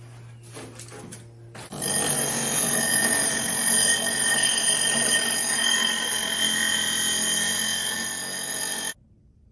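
Bench grinder grinding a piece of metal: a loud, steady screech with high ringing tones. It starts about two seconds in and cuts off abruptly near the end. Before it there is a quieter low hum and a few light knocks.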